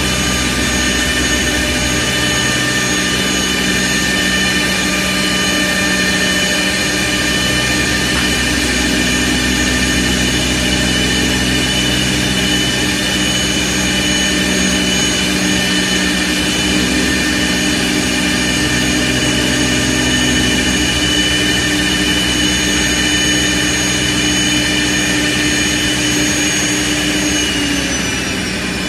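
CNC pool cue wood lathe running, its twin cutter spindles machining a wooden cue blank: a steady high whine over dense cutting noise. Near the end the whine falls in pitch as the spindles slow down.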